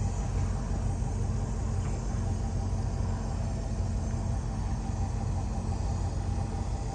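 Steady low vehicle rumble, engine and road noise at an even pace with no revving or sudden sounds.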